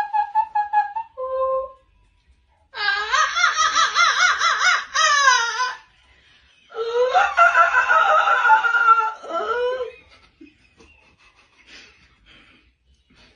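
A person laughing in two long high-pitched bouts, the pitch wavering up and down in quick pulses, after a short steady high note at the start.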